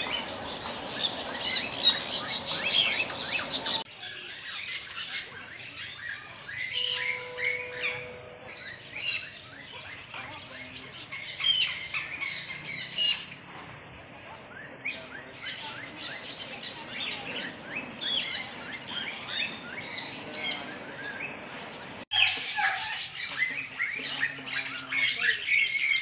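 A flock of many small birds in an aviary chirping and calling at once, a dense chorus of short high calls. The loudness changes abruptly about four seconds in and again near the end.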